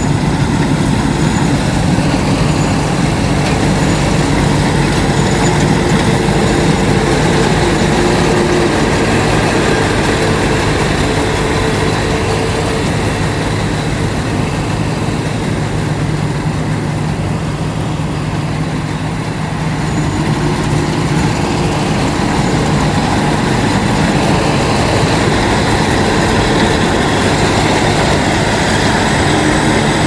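Combine harvester running steadily, with a slight dip in loudness partway through.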